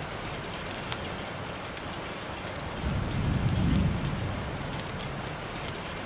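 Steady rain falling, with individual drops ticking close by. About three seconds in, a low rumble of thunder swells and fades.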